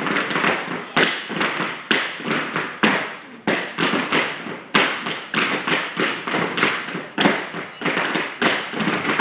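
Tap dancing: several dancers' shoes striking a hard floor in a fast rhythm of taps, with a heavier accented beat about once a second.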